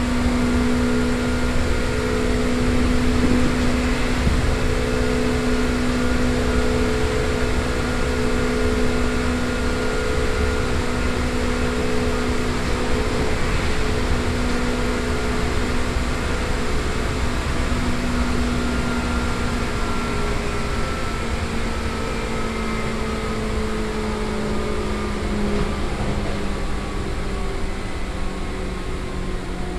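Seibu 2000 series electric train running at speed, heard inside the car: a steady hum from the field-chopper-controlled traction motors over wheel-and-rail rumble. In the second half the motor tones slowly drop in pitch as the train slows. The motors are turning fast for the train's speed, which the recordist guesses comes from freshly reprofiled wheels.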